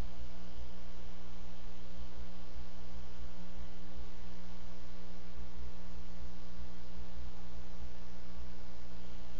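Steady electrical hum from a wildlife camera's audio feed: several fixed low tones over a constant hiss, unchanging throughout.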